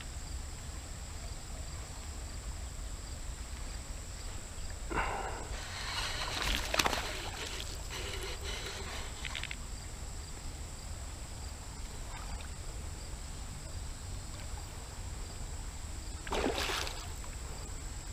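River water splashing and sloshing briefly a few times, at about 5, 7 and 16 seconds in, over a steady low outdoor rumble and a faint thin high-pitched tone.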